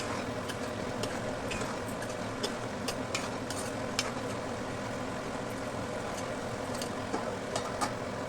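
Bitter gourd curry sizzling in a pan, with irregular clicks of a spatula stirring against the pan.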